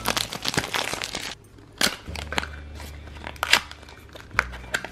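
A Shopkins blind basket being unwrapped by hand. The cardboard sleeve crinkles and tears for about the first second, then the plastic basket gives a string of separate sharp clicks and snaps as it is handled and opened.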